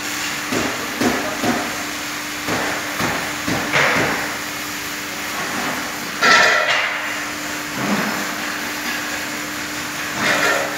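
Workshop hammering: irregular sharp metal knocks and clanks, several in quick succession over the first few seconds, over a steady low hum. A louder rasping burst comes about six seconds in, and another near the end.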